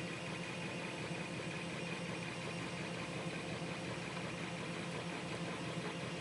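A 3D printer running: a steady mechanical hum with a few constant tones.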